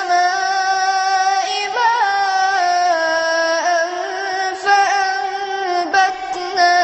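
A boy's high voice chanting Quran recitation in a long, drawn-out melodic line, each note held and turned in small ornaments, unaccompanied.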